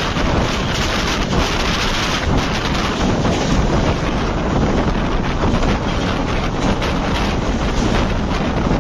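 Wind buffeting the microphone held out of a moving train, over the steady rush and rumble of a passenger train passing close by on the next track.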